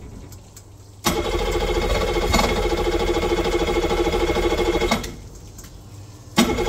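Tohatsu 90 hp TLDI fuel-injected outboard being started with the key: the starter cranks it in a steady, fast-pulsing run of about four seconds that begins with a click about a second in and then stops. A second try starts abruptly just before the end.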